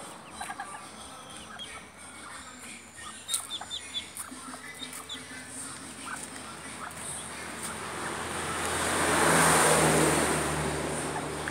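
Muscovy ducklings peeping in short, high chirps while a vehicle passes, its noise swelling to the loudest point about nine seconds in and fading toward the end.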